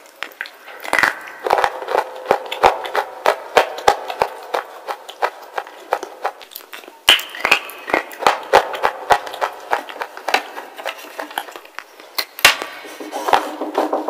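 Close-up crunching and chewing of a wet edible slate bar: crisp, sharp crunches, several a second, with a few louder bites.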